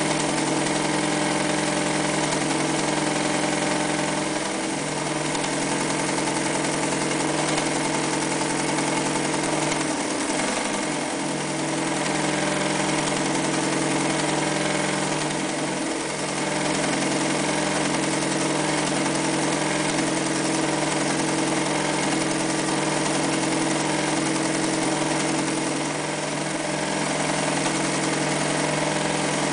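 Early-1960s Mitsubishi MAZ4 all-metal sewing machine running steadily, stitching through fabric.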